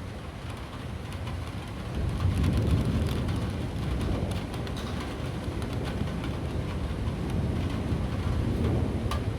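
Rain falling steadily, with a low rolling rumble of thunder that swells about two seconds in and carries on.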